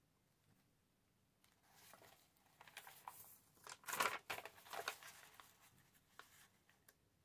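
Paper being handled, rustling and crinkling in irregular spurts, loudest about four seconds in, with a few light ticks near the end.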